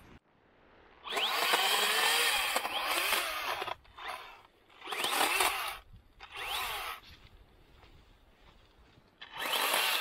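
Makita battery-powered electric chainsaw cutting through young spruce in four bursts: a long cut of nearly three seconds, then three short ones. Each burst starts with the motor's whine rising as it spins up.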